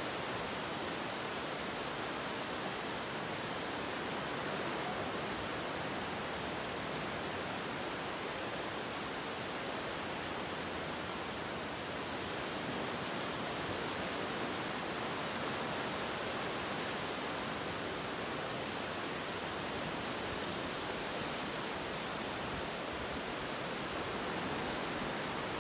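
Steady, even rushing hiss with no rise and fall and no distinct events.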